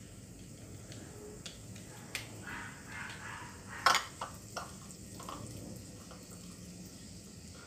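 A breaded Spam stick deep-frying in oil in a wok, a steady sizzle, with a few sharp knocks of tongs against the wok, the loudest about four seconds in.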